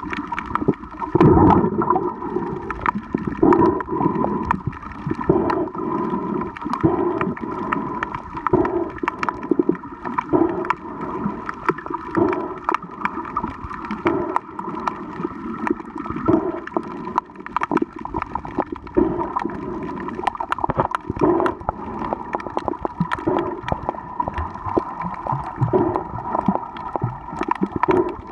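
Underwater sound on a coral reef: a steady crackle of sharp clicks over muffled water movement, with low surges about once a second and a faint steady hum.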